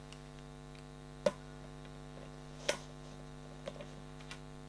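Steady electrical hum with a few sharp clicks and taps of small plastic RC car parts and hand tools being handled. The two loudest clicks are about a second and a half apart, followed by a few fainter ones near the end.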